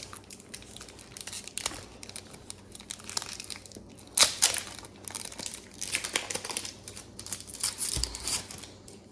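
Foil wrapper of a Pokémon card booster pack being torn open and crinkled by hand: irregular crackling, with louder rustles about four seconds in and again near the end.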